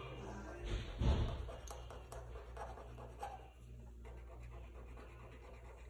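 Black marker scratching across paper as a drawing is coloured in, with a muffled thump about a second in.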